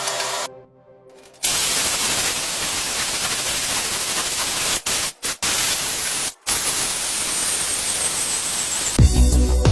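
A loud, even hiss like static that starts suddenly about a second and a half in and cuts out abruptly for brief moments three times. A faint high tone slides downward near the end.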